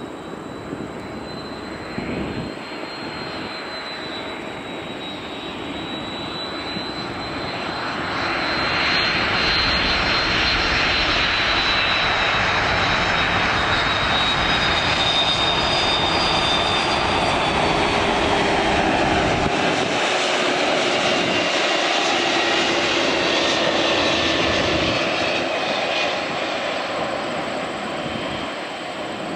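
Jet engines of an Airbus A330-200 airliner on final approach passing close by: a rushing engine noise with a high whine that swells to its loudest about eight seconds in, holds, then drops in pitch as the aircraft goes past and eases off near the end.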